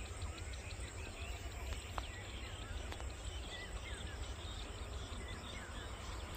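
Small birds chirping in open country, many short scattered calls over a steady low rumble.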